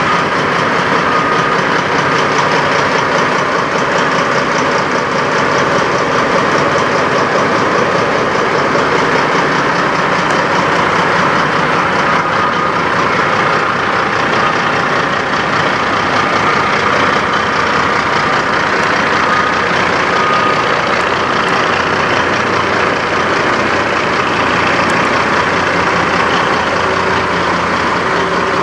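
2000 Kenworth W900 semi truck's diesel engine idling steadily.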